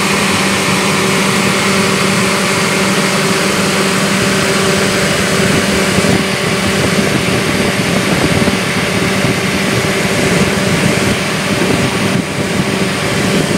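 Daihatsu Gran Max 1.5's electric radiator cooling fan running at close range with the engine idling: a steady whir and rush of air with a constant low hum. The fan has been cut in by the coolant temperature (ECT) sensor at operating temperature, a sign that the sensor is working normally.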